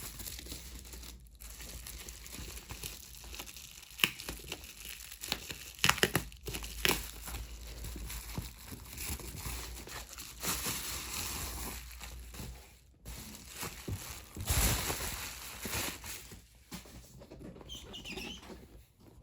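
Crinkling and rustling of something being handled, broken by a few sharp clicks, the loudest about four and six seconds in.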